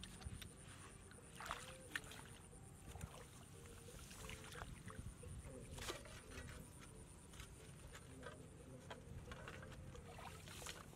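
Faint sloshing and small splashes of shallow paddy water as frogs are handled and pushed into a bamboo trap, with scattered light clicks and rustles.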